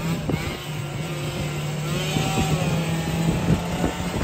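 Tuned Yamaha BW's two-stroke scooter engine running on the road at a steady throttle, its note holding steady.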